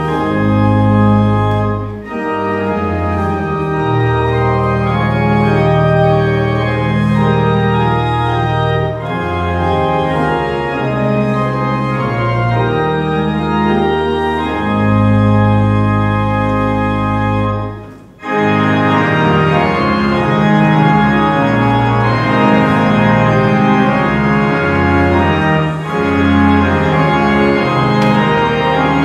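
Church organ playing slow, sustained chords over deep held bass notes. About eighteen seconds in, the music breaks off for a moment and then goes on.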